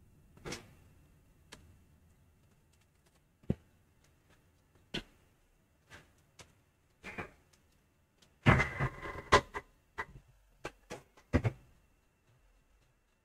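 Scattered soft clicks and knocks, a few seconds apart, with a brief cluster of clattering about eight and a half seconds in.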